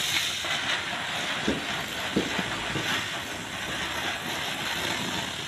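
Small ground-spinner firework hissing steadily as it throws out a spray of sparks.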